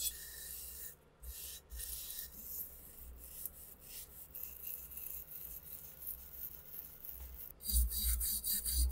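Wire brush scrubbing the rusted, wet barrel and receiver of an SVT-40 rifle in repeated rasping strokes, louder near the end.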